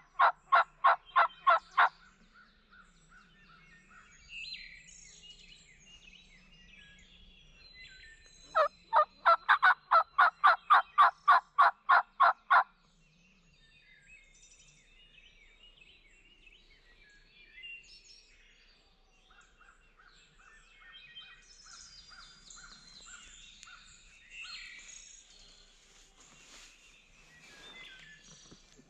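Two long, fast runs of loud, evenly spaced turkey-call notes, about four or five a second: one at the start and one from about nine to thirteen seconds in. They come from a hunter's turkey call sounded to draw a gobble, and no gobble answers. Faint songbird chirps fill the gaps.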